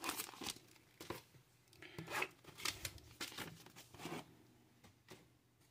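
Clear plastic bag crinkling and rustling in the hands as decal sheets are slid back into it, with some paper and cardboard handling; irregular crackles that die down near the end.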